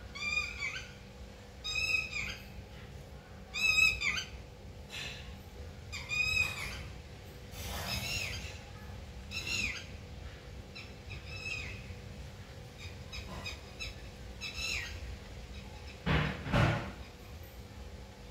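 Pet parrot calling: a string of short, high calls that bend down in pitch, one every second or two. Near the end comes a single louder, harsher burst.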